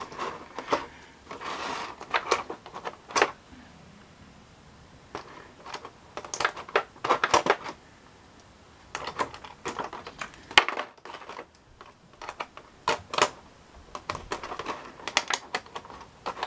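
Clear plastic blister tray of a fingerboard pack clicking and crinkling under fingers as small parts are picked out of it: irregular taps and short crackles, with one sharp snap about ten and a half seconds in.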